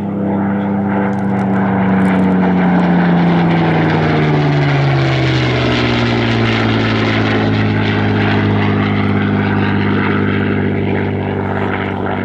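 Spitfire PR XI's Rolls-Royce Merlin V12 engine in a low flypast. Its note drops in pitch about four to five seconds in as it passes, then holds at the lower pitch as it draws away.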